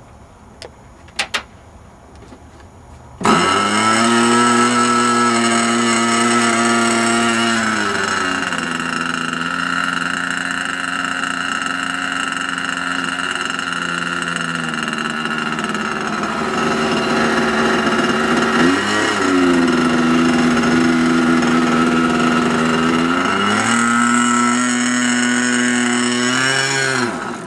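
R/C Cessna 182 model airplane's small fuel engine running: it starts abruptly about three seconds in and runs with a high, buzzing whine. It is throttled down and back up several times, then winds down with a falling pitch and stops near the end.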